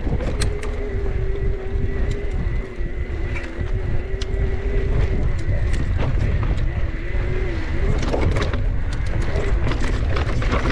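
Electric mountain bike's motor whining at a steady pitch under pedalling, fading out about halfway and coming back briefly a little lower. Heavy wind rumble on the microphone, with the ticking and clatter of tyres over dirt and rock.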